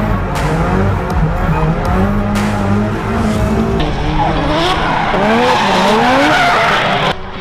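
Drift cars running at full throttle with tyres screeching as they slide. The first few seconds are heard from inside a chasing car, its engine note stepping up and down through the revs. The rest is heard from trackside, with engines revving up and down in quick repeated sweeps as two cars drift in tandem.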